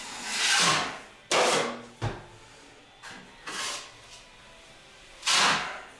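Drywall knife scraping across joint compound on a wall in several quick strokes, each a short swish, with a sharp click about two seconds in.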